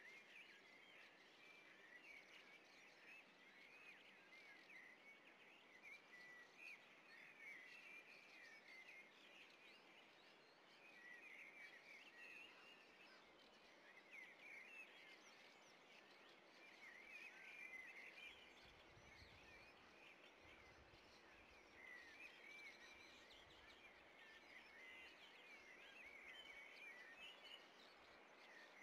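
Faint, continuous chirping of small birds over a soft, steady hiss.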